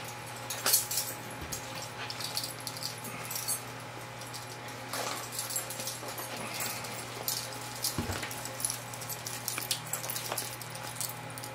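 Rubber gloves being worked on over sweaty hands: scattered rubbery squeaks and rustles, over a steady low hum.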